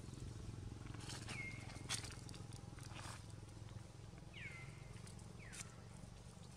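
Faint animal calls: about four short, high calls, each sliding down and then holding a steady note, with a few sharp clicks between them over a steady low rumble.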